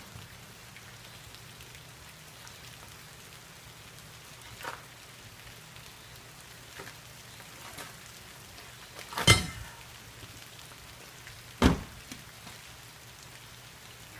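A few sharp knocks over a steady low hum and hiss: a faint one about five seconds in, then two loud ones about nine and eleven and a half seconds in, the first with a short ring.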